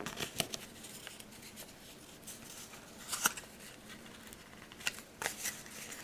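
Scattered light clicks and taps, a few sharper than the rest, as a wooden toothpick is worked into the pin holes drilled through a balsa control surface and its CA hinge.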